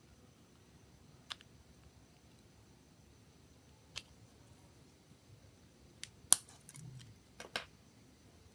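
Sharp small clicks of hard parts or hand tools being handled: two single clicks a few seconds apart, then a quick cluster of clicks and taps near the end, the loudest of them about six seconds in.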